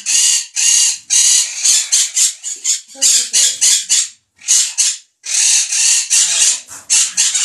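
Parrots squawking: a rapid run of short, loud, harsh screeching calls, with two brief pauses around the middle.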